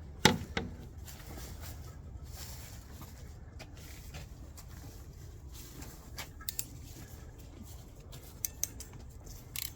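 Light handling sounds of plastic MC4 solar connector parts: a few scattered clicks and taps, one sharper click right at the start and a couple more near the end, over a steady low background rumble.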